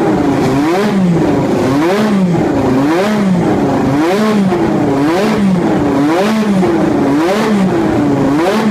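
Lotus 97T Formula One car's 1.5-litre turbocharged Renault V6 being revved repeatedly, the revs rising and falling about once a second.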